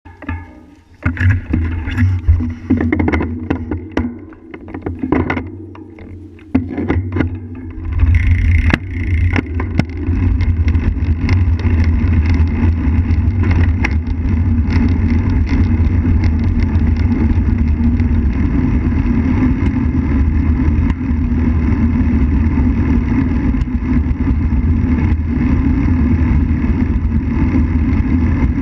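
Knocks and clicks as a bicycle-mounted camera is handled and the ride gets under way. From about eight seconds in, a steady low rumble of wind on the microphone and bicycle tyres rolling on pavement.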